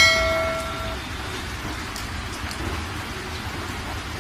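A bright bell-like ding at the start that rings and fades out within about a second: the notification-bell sound effect of a subscribe-button overlay. Under it, a steady rain-like hiss.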